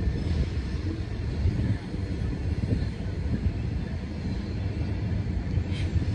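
Low, steady rumble of a distant Norfolk Southern freight train's diesel locomotives working up the grade, with a short high-pitched sound near the end.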